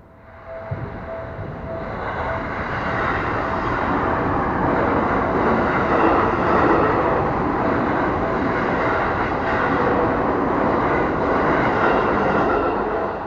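Seibu Railway Ikebukuro Line train passing over a level crossing: its rumble swells from about half a second in, holds loud, then falls away near the end. Behind it the crossing's warning bell keeps ringing in a steady repeating tone.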